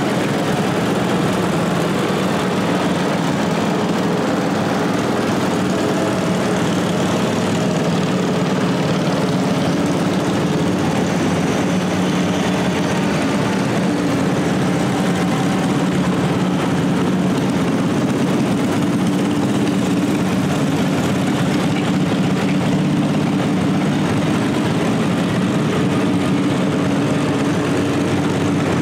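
Small garden tractor engines running as a line of the tractors drives past one after another, several engine notes overlapping in a steady hum.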